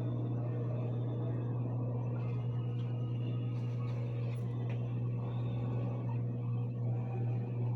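LG washing machine's drain pump running at the start of the spin cycle: a steady electric hum. It wavers slightly near the end.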